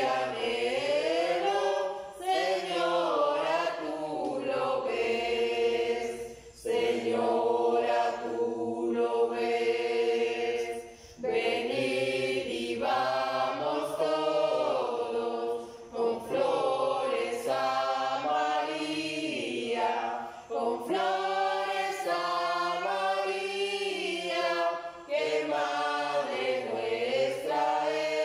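A choir singing a slow devotional hymn, in long phrases of about four to five seconds with brief breaks between them.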